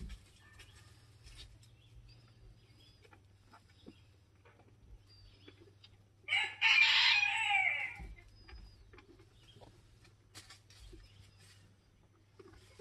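A rooster crows once about six seconds in, loud and lasting under two seconds, dropping in pitch at the end.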